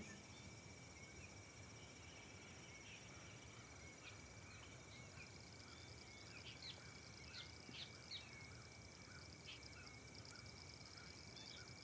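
Faint outdoor insect ambience: a steady high trill and a fast pulsing buzz, with scattered short chirps in the middle.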